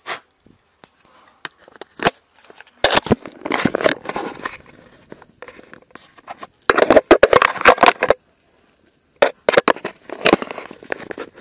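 Handling noise: rustling and crinkling of things being moved about, in three bursts with sharp clicks and knocks between them and short silent gaps.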